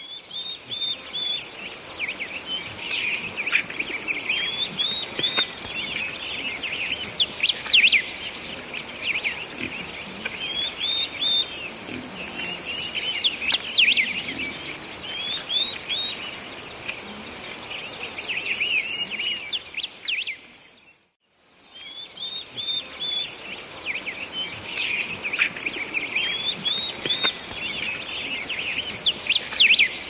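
Songbirds chirping and trilling: many short, quick phrases and repeated rising chirp figures over a light hiss. The birdsong fades out briefly about two-thirds of the way through, then starts again.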